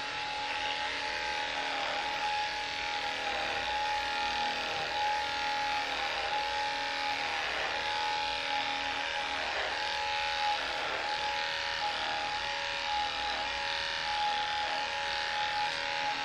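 Cordless electric dog clippers running steadily with a high hum while clipping a dog's coat, the pitch dipping briefly every second or two.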